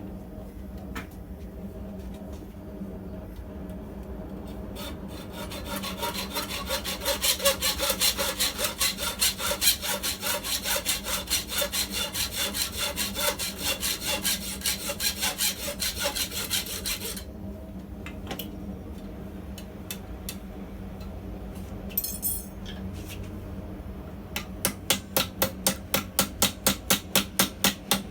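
Rapid rhythmic strokes on steel during forging, about four a second: a long run of about twelve seconds, a few scattered knocks, then a shorter, sharper run near the end, over a steady low hum.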